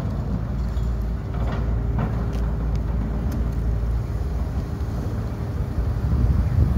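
Hydraulic demolition excavators working: a steady low diesel engine rumble with a faint steady whine, and a few short knocks in the first few seconds.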